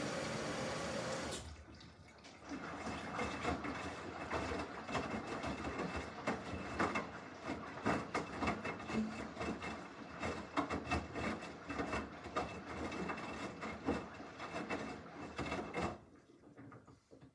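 Samsung washing machine filling: water runs and splashes into the drum for about fourteen seconds, then stops. Before that, a steady hiss cuts off suddenly about a second in.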